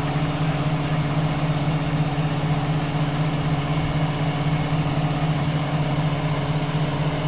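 A truck-mounted crane's engine running steadily: an even, unbroken low hum.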